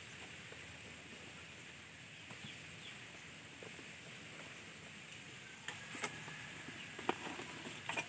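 Plastic clicks and knocks of a DJI Phantom 4 drone and its remote controller being handled and lifted out of a foam-lined carrying case, over a faint outdoor hiss. The clicks come in the second half, the sharpest about seven seconds in.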